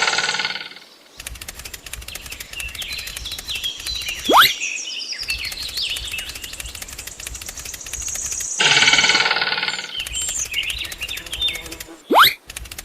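Bird chirps over a fast, even mechanical clicking buzz that stops and starts. Two loud rising whistles sweep upward, about four seconds in and near the end, and a steady pitched sound lasts just over a second around the two-thirds mark.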